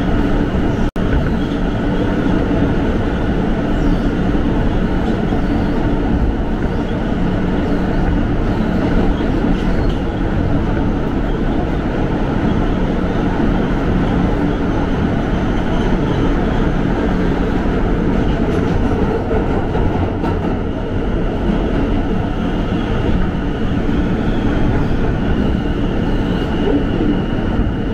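Inside an R160 subway car running between stations: a steady, loud rumble of wheels on rail with a few held tones over it. The sound drops out for an instant about a second in.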